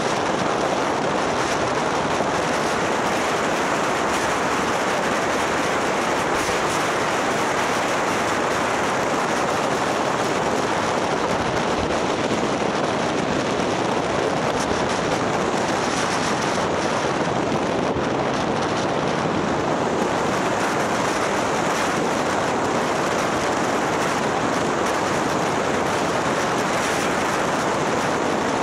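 Steady rush of wind and road noise on the microphone of a camera mounted on a moving motorbike, holding an even level without change.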